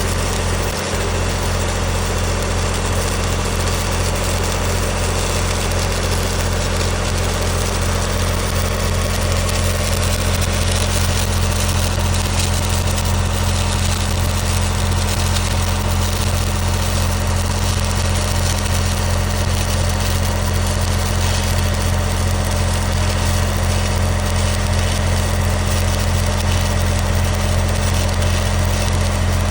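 Stick-welding (SMAW) arc crackling steadily through a downhill pass, over the steady low hum of the welding machine. It gets slightly louder about a third of the way in.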